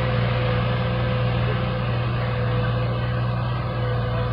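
John Deere 5065E tractor's diesel engine running steadily under load while pulling a seven-disc plough, a constant low hum with a thin steady whine above it.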